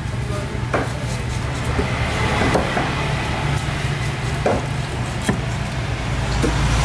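A large broad-bladed knife chopping through fish onto a wooden tree-stump chopping block: about five separate knocks, a second or so apart, over a steady low hum.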